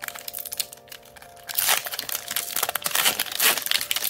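Foil Pokémon booster-pack wrapper crinkling as it is pulled open by hand, a dense crackle that gets louder about halfway through.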